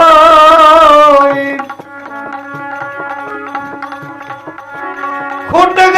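Bhajan singing: the singer holds the end of a line with vibrato, then about four seconds of instrumental interlude, with steady held notes and tabla strokes. The voice comes back in near the end.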